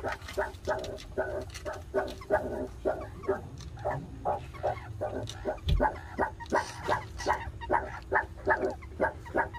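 Meerkats giving short calls over and over, settling into a steady rhythm of about three a second.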